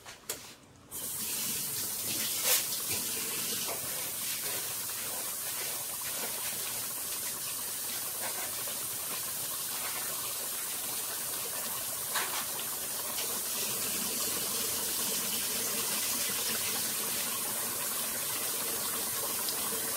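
A kitchen tap is turned on about a second in and runs steadily while rice is washed under it. Two light knocks come through, one early and one about twelve seconds in.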